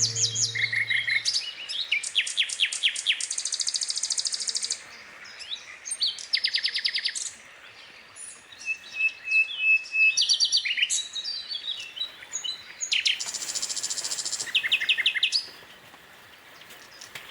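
Birds calling and singing: bouts of rapid, high chirps and trills, with short quieter pauses between them.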